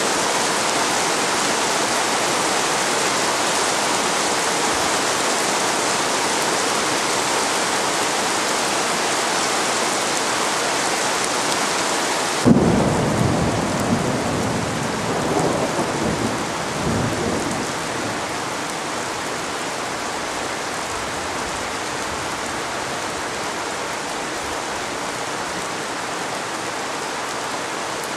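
Thunderstorm downpour: a steady, dense hiss of heavy rain. About twelve seconds in, a sudden loud thunderclap breaks in and rumbles on for about five seconds, and the rain carries on more softly.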